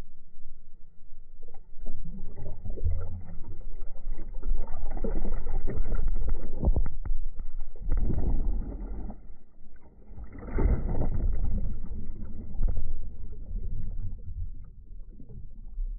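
Muffled churning and sloshing of water heard through a phone held underwater beside a butterfly swimmer, rising and falling in surges with a few sharp clicks.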